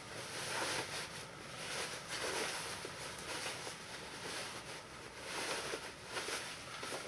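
Cotton fabric and lightweight wadding rustling and swishing in irregular swells as a layered table runner is pulled right side out through a gap in its seam by hand.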